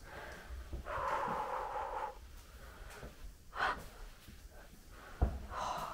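A person breathing heavily: a long breathy exhale about a second in and shorter breaths later. There is a single sharp knock about five seconds in.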